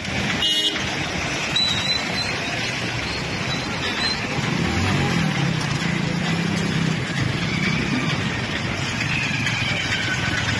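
Motorcycles and other traffic driving along a flooded street, a steady wash of engine and road noise. A short knock comes just after the start, and an engine hum stands out from about five to eight seconds in.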